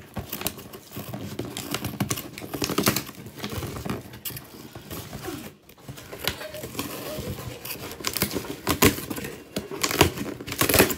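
Packaging being crumpled and torn as hands dig into a cardboard shipping box: irregular crinkling and crackling, with a few louder crackles near the end.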